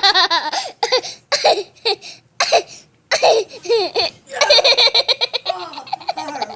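Children laughing hard in repeated high-pitched bursts with short breaks between them.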